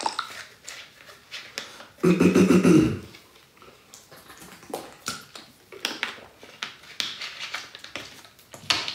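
A loud drawn-out vocal sound lasting about a second, two seconds in, then quiet small gulps, clicks and plastic bottle handling as a man drinks from a plastic bottle.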